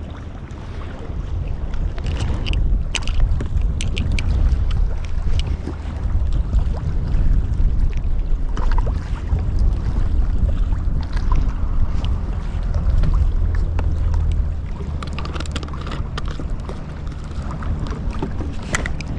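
Wind rumbling on the microphone over choppy open water, with scattered faint clicks and ticks.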